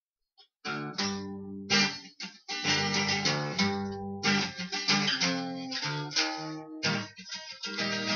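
Acoustic guitar strummed in a rhythmic chord pattern, starting about half a second in.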